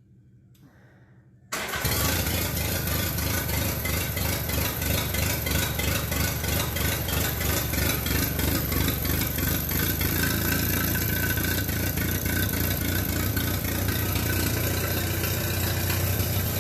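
Minneapolis-Moline BF tractor's freshly rebuilt four-cylinder engine running steadily at a fast, even firing beat, cutting in abruptly about a second and a half in.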